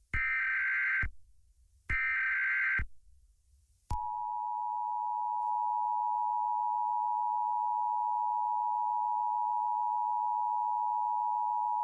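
Emergency Alert System tones: two short bursts of SAME header data, each just under a second, then about four seconds in the steady two-tone EAS attention signal begins and holds, announcing an alert message to follow.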